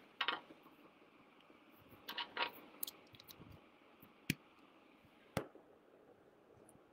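Faint handling noise: a few short rustles and small clicks, with two sharper clicks about four and five and a half seconds in, over quiet room tone.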